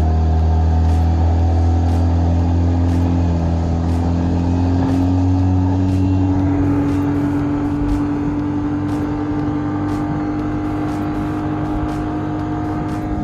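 25-horsepower Yamaha outboard on a 16-foot skiff running steadily with the boat under way, its pitch creeping up slightly a few seconds in.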